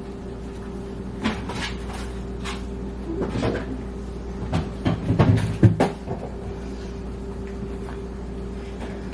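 Kitchen handling sounds: a series of knocks and bumps as doors and containers are opened and moved, loudest about five to six seconds in, over a steady low hum.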